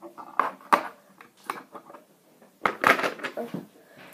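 Plastic Lego bricks and minifigure parts clicking and clattering as they are handled and pressed together on a tabletop. The sharp clicks come in a string, loudest just under a second in and about three seconds in.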